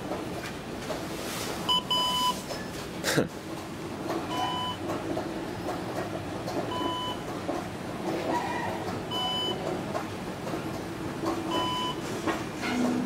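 A short electronic beep from a KONE EcoDisc elevator repeats about every two and a half seconds over a steady hum. One knock comes about three seconds in.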